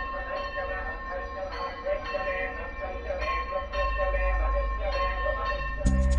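Devotional music with ringing bells, struck about once a second over a steady wavering drone. Near the end a louder music cue with a beat cuts in.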